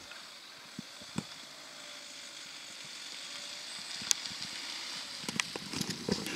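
Volkswagen Golf rolling slowly towards, a steady hiss growing louder as it nears, with a scatter of sharp crackles from grit under the tyres in the last two seconds.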